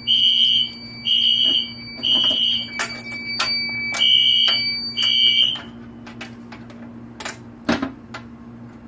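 Fire alarm horns sounding the temporal-3 evacuation pattern: three short high-pitched blasts, a pause, then two more, over a steady high tone. The alarm cuts off a little past halfway, followed by a few clicks and knocks.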